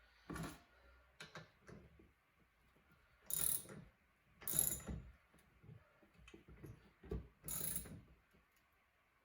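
Socket ratchet being cranked in short strokes, about six bursts of ratchet clicks, turning the bolt of a crank puller on a stuck pedal crank.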